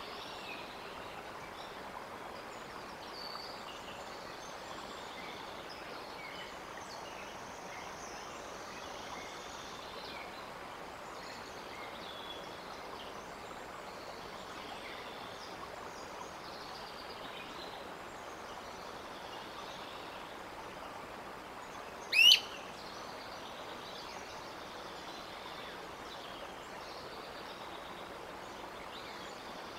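Steady outdoor background noise at a wooded nest site, with faint scattered bird chirps. About 22 seconds in there is a single loud, brief call that rises sharply in pitch.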